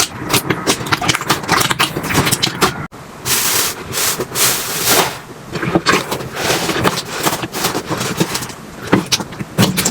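Slime being pressed, squished and stretched by hand, with dense crackling and popping clicks. It breaks off sharply about three seconds in, then comes back as a couple of seconds of softer hissing squelch before the clicking returns.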